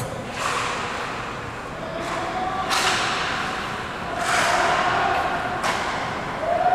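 Ice hockey skate blades scraping and carving the ice in several short hissing bursts as players push off and turn, with a sharp stick-on-puck knock among them.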